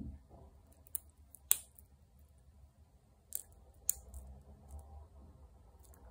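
Stainless steel butterfly deployant clasp of a Tissot Quadrato bracelet clicking. There are four sharp metallic clicks in two pairs, each pair about half a second apart, and the second click is the loudest.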